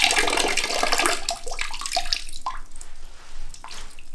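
Water running from an old wall tap into a bucket that already holds water, as the pipes drain after the supply has been shut off. The flow starts strong and thins out toward the end as the pipes empty.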